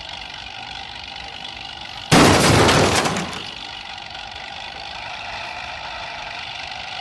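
A sudden loud crash about two seconds in, lasting about a second and dying away, over a steady hum.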